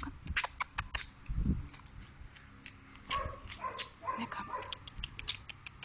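Small dog giving three or four short whining yips close together about three seconds in, amid scattered sharp clicks.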